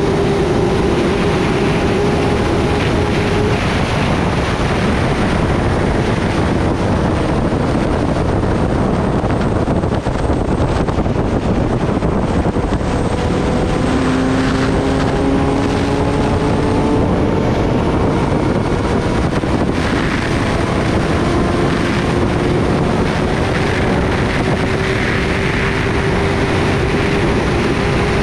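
Steady wind rush on the microphone at highway speed on a Kawasaki Ninja ZX-10R sportbike. Underneath it, the inline-four engine's note climbs slowly in pitch several times as the bike accelerates.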